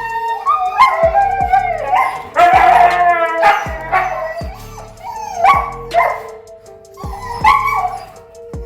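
Huskies howling, yipping and barking in a string of loud, wavering calls, over background music with a steady beat.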